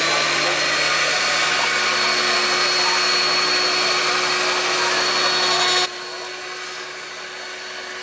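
A motor runs with a steady high whine and a rushing noise, over potatoes frying in a commercial deep fryer. About six seconds in, the sound drops to a quieter level and carries on.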